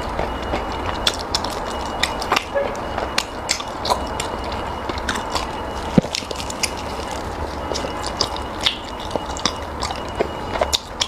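Close-miked eating: irregular wet clicks and smacks of a mouth biting and chewing food, over a steady low background rumble.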